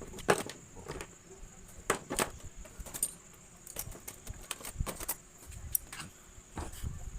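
Irregular small clicks, taps and light rattles of hand tools and screws against a laptop's plastic case as it is worked open. A steady faint high whine runs behind them.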